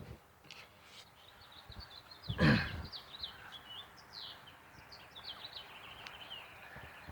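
Small birds chirping in rapid, high, short notes. About two and a half seconds in comes a single brief, loud sound that falls in pitch.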